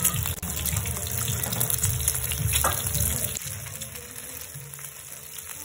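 Boiled eggs sizzling in hot oil in a frying pan, with a single sharp click about two and a half seconds in. The sizzle eases off a little after about three seconds.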